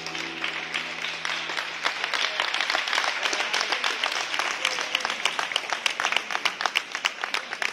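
Program music fades out about a second in, and a small audience applauds with many distinct hand claps.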